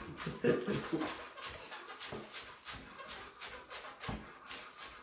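Chef's knife chopping spring onions on a wooden cutting board: quick, even knocks of the blade on the board, about three a second.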